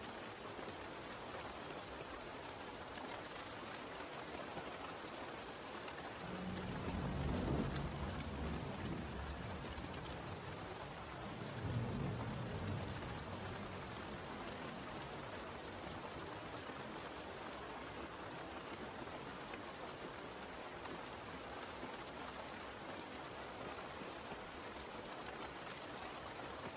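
Steady rain falling, with two low rumbles of thunder, one about seven seconds in and another about twelve seconds in.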